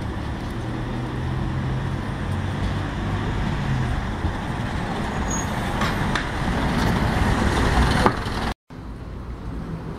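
Diesel engine of a Scania N230UD double-decker bus pulling away from the stop, then a single-deck bus's engine and tyres growing louder as it passes close by. It is loudest about eight seconds in, then cuts off suddenly, leaving quieter street traffic.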